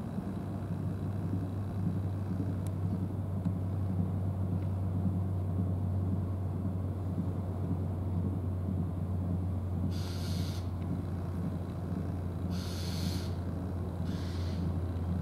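Steady low engine hum. Three short hisses come near the end.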